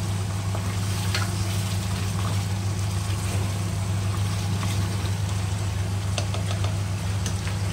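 Mutton frying in masala in a nonstick pot, sizzling steadily, with a spatula stirring and scraping a few times, over a steady low hum.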